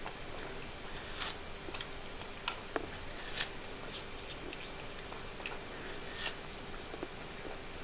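A cat chewing and licking melon: irregular small clicks and smacks, about two a second, over a steady background hiss with a faint hum.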